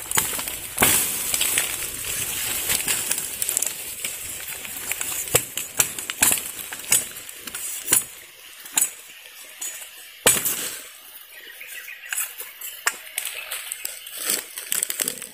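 Thin bamboo stems being chopped and pulled out with a long knife: a run of sharp knocks and clacks of the blade on the cane over the rustle of bamboo leaves. The knocks come thick and fast at first, thin out later, and the loudest comes about ten seconds in.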